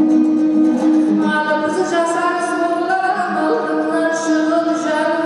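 A woman singing a Kazakh song in long held notes, accompanying herself on a strummed dombra.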